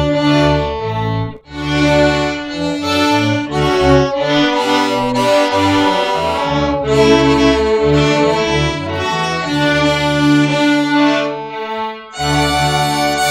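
A youth string orchestra of violins, cellos and double basses playing in held, bowed phrases, with a brief break about a second in and another near the end.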